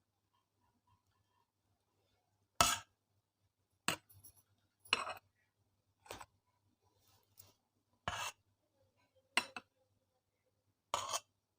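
A serving spoon scraping and clinking against a dish in about seven short, separate strokes, as arhar dal is served out.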